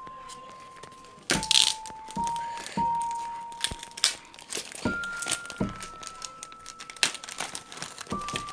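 Plastic parcel packaging crinkling and tearing as it is opened, with a sharp rip about one and a half seconds in, over background music of slow, held single notes.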